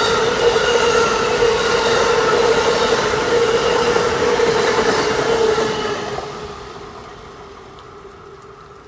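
Amtrak Northeast Regional passenger cars rolling past on the rails, a steady ringing tone over the rumble of the wheels. The sound fades away from about six seconds in as the end of the train draws off.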